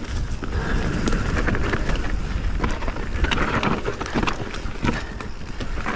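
Canyon Spectral 29 full-suspension mountain bike ridden fast over a dirt trail: the tyres roll with a steady rushing noise, and frequent short clicks and rattles come from the bike over the bumps. Wind rumbles on the chest-mounted microphone underneath.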